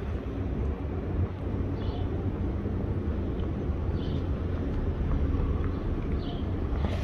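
City street ambience: a steady low rumble of traffic, with a few faint short high ticks.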